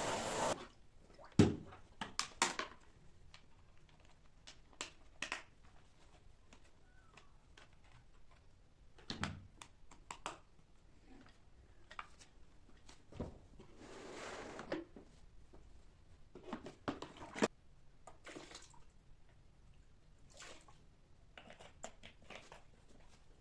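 Household handling sounds: scattered light knocks, clicks and taps of objects being moved and set down, with a short soft rush near the middle. A louder rushing noise cuts off just after the start.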